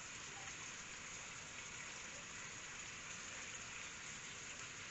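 Faint, steady sizzle of olive oil, onion and meat cooking over low heat in a clay tagine.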